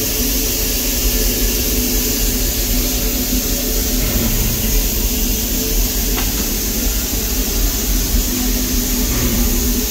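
Steam locomotive standing with steam up: a steady hiss over a constant low hum, with no chuffing.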